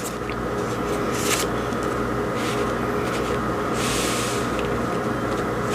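Tarot cards being drawn from the deck and laid down: a few brief rustling slides of card, the longest a little before four seconds in, over a steady low hum.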